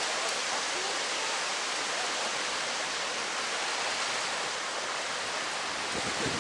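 Steady, even rushing hiss, like running water, with no single sound standing out.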